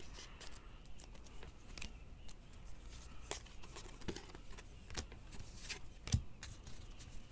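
Trading cards handled and flipped through one at a time, with soft irregular clicks as card edges slide and snap off the stack, and a slightly louder knock about six seconds in.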